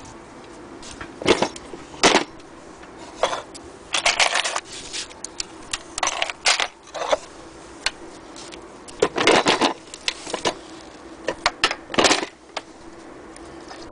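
Irregular clicks, knocks and rattles of metal bobbins and small tools being handled in the wooden accessory box of a hand-crank Singer sewing machine's case, and of the machine itself being touched, over a faint steady hum.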